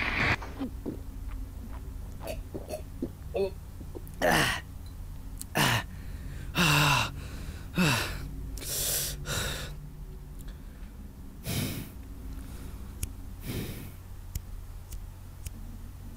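A man gasping and groaning through a series of heavy breaths, each a second or two apart. Several end in a falling, voiced groan. A few faint clicks come near the end.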